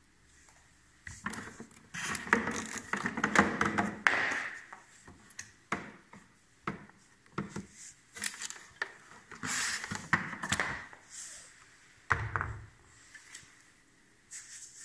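Unpacking noises: packaging rustling, with irregular clicks and knocks as parts are handled and set down, and a dull thump about twelve seconds in.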